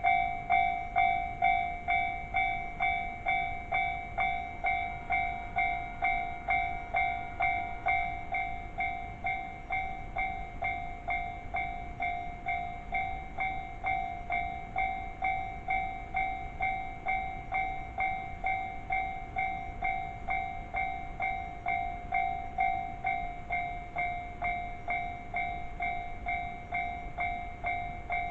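Japanese railway level crossing warning bell ringing steadily, a clanging ring at about two strikes a second. This is the signal that a train is approaching and the crossing is closing.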